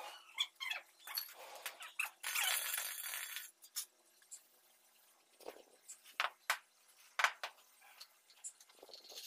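Steel trowel working damp sand-cement floor mortar. About two seconds in there is a second or so of scraping hiss, and later a scatter of sharp taps. Short chirps come in the first second or two.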